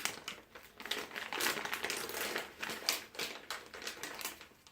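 Crinkling and crackling of mystery-bag packaging being handled and torn open: a dense, irregular run of crackles that dies away near the end.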